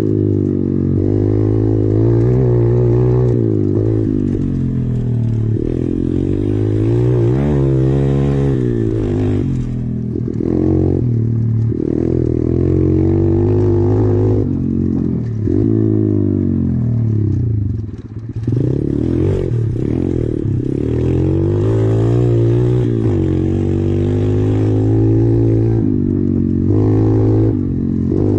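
SSR 125 pit bike's single-cylinder four-stroke engine under way, its pitch rising and falling over and over as the rider works the throttle and shifts, with a brief drop in power about two-thirds of the way through.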